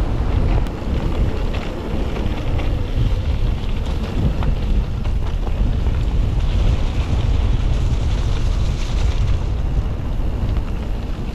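Wind buffeting the microphone and a steady low rumble from a Mondraker electric mountain bike rolling along a trail, with a few small clicks and rattles.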